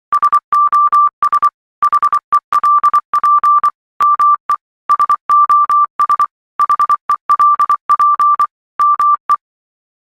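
Morse code sent as a single-pitched beep, keyed on and off in short dots and longer dashes with brief gaps between letters. It starts right away and stops about nine seconds in.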